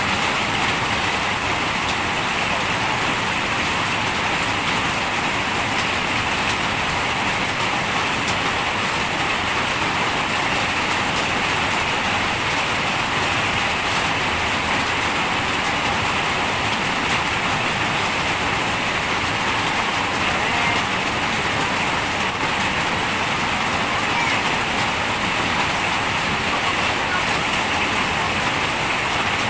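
Steady rain falling, an even, unbroken patter.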